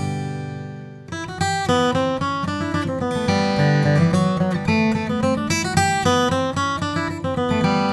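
Martin D-45 dreadnought acoustic guitar with an Adirondack spruce top and Madagascar rosewood back, played solo. A chord rings out and fades for about a second, then playing picks up again with a run of picked notes and chords.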